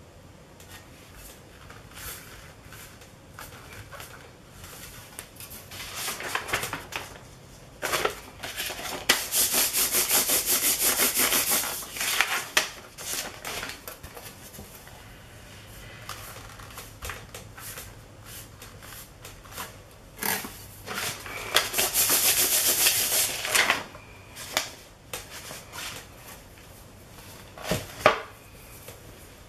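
Hand work at a gel-printing table: two long stretches of fast, rasping rubbing, with shorter rubs, light knocks and handling noise between them.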